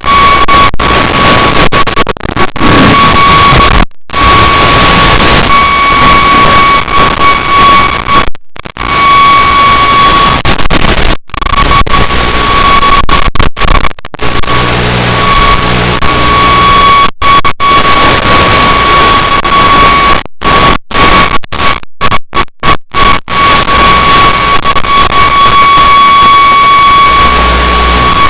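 Loud static hiss from an FPV video link's audio channel, with a steady high whine in it. It cuts out to silence many times for split seconds, as the radio signal drops.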